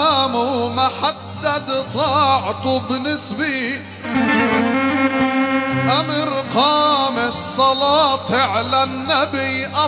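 A man sings an ornamented Arabic vocal line into a microphone, his pitch bending and gliding between held notes, over amplified accompaniment with a steady low bass line.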